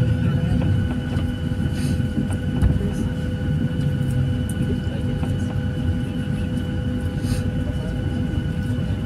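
Cabin noise of a Southwest Airlines 737-700 moving slowly on the ramp with its CFM56-7B engines at low power: a steady low rumble under a steady engine whine of several held tones.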